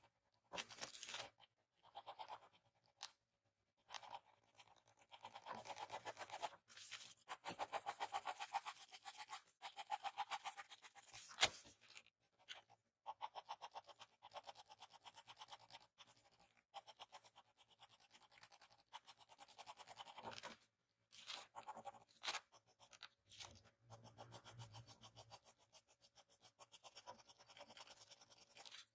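Mechanical pencil scratching on paper in quick, closely spaced shading strokes, coming in bursts with short pauses. A single sharp click stands out about eleven seconds in.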